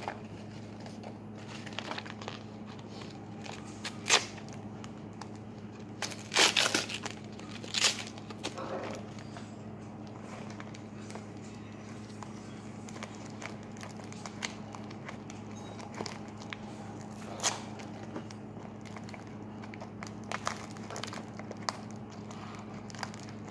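Aluminium foil wrapper crinkling and rustling as it is handled, with scattered small taps and a few louder crackles about 4 and 7 seconds in, over a steady low hum.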